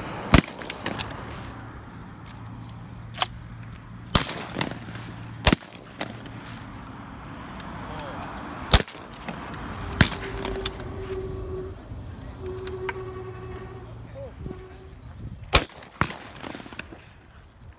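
Shotgun shots at a clay-target range: several shooters firing in turn, with sharp reports every second or few and some fainter ones further down the line.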